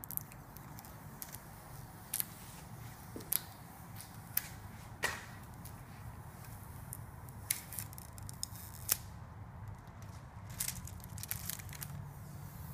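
Clear protective plastic film being peeled off a flat-screen TV: irregular sharp crackles and clicks, a dozen or so, over a steady low hum.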